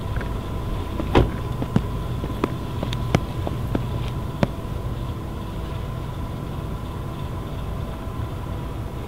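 A car door shuts with a thud about a second in, followed by a few footsteps on pavement, over a steady low background rumble and a faint steady hum.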